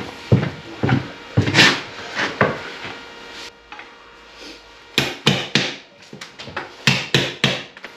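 Hammer and chisel striking into a wall while chasing out a socket-box recess: irregular sharp knocks in two runs, one in the first couple of seconds and another from about five seconds in, with a lull between.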